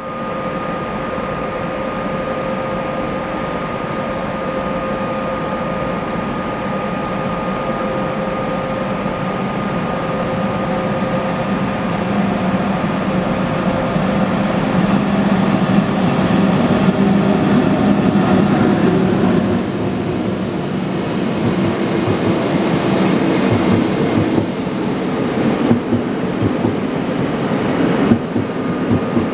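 ÖBB passenger train pulling into a station, its rumble growing steadily louder as it approaches and rolls along the platform. Late on come two brief high squeals, then sharp clicks of wheels over the rail joints as the coaches pass close by.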